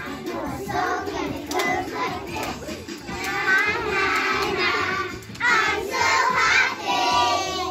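A group of young children singing together to recorded music, the singing growing stronger about three seconds in.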